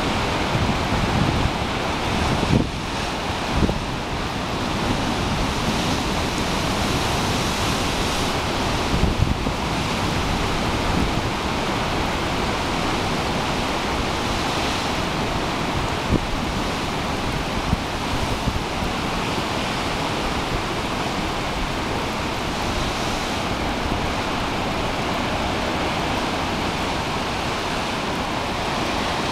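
Heavy surf breaking and churning against a rocky shore, a continuous rush of waves and foam. A few gusts of wind buffet the microphone in the first several seconds.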